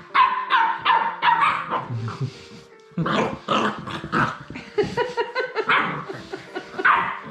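Labrador retriever puppies barking over and over during rough play-fighting, short high calls in quick runs with a brief lull about two seconds in.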